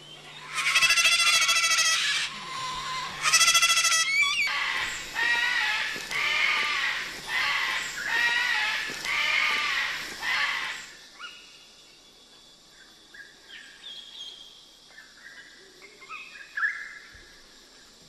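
Moluccan cockatoo screaming in distress as it is handled and held by the wings: two long, loud screams, then a run of about six shorter harsh calls. About eleven seconds in the sound drops to faint chirps of small forest birds.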